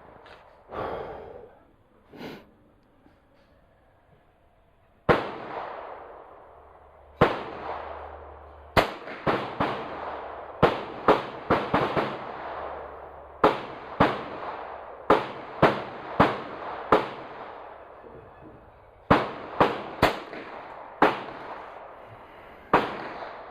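A string of about twenty .22 LR gunshots, irregularly spaced, some in quick succession less than half a second apart. Each sharp crack trails off in a short echo. Two fainter shots come in the first few seconds.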